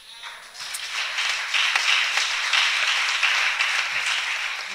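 Congregation applauding, swelling over the first second and then holding steady.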